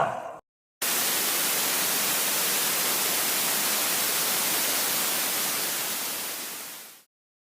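TV static sound effect: an even, bright hiss that starts abruptly about a second in, holds steady and fades out over its last second. Just before it, the tail of another effect dies away, with a brief silence between.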